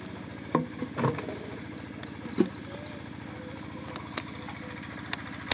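A steady low motor hum, with several short thumps and a few sharp clicks over it as a freshly caught fish is handled for release.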